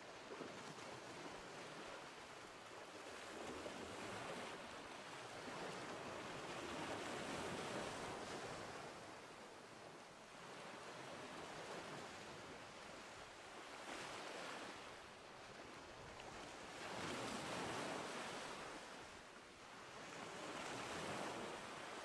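Sea waves washing in, a soft rush of surf that swells and fades every few seconds.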